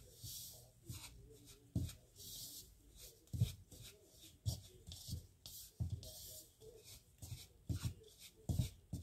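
Flour dough being stirred in a plastic bowl: irregular soft knocks against the bowl, with scraping and rubbing in between.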